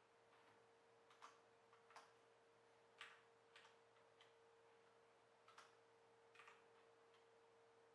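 Faint, irregular clicks of computer keyboard keys pressed one at a time to step through BIOS setup menus, about ten presses, over a faint steady hum.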